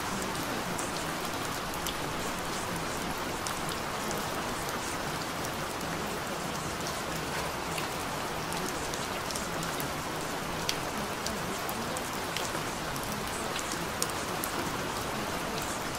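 Falling water splashing steadily, an even spatter with scattered small drip clicks.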